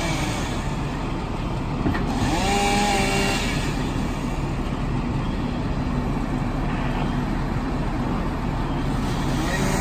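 Diesel engines of fire engines running steadily at a fire scene, a constant low drone. A brief higher tone rises over it about two seconds in.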